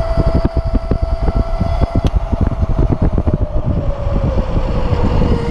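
Wind buffeting the microphone of a riding Uberscoot 1000W 36V electric scooter, over its electric motor's steady whine. The whine drops in pitch from about three seconds in as the scooter slows from 20 mph into a sharp turn.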